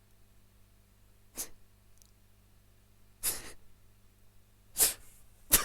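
A person's breath: four short, sharp exhalations, like snorts through the nose, spaced about a second or two apart.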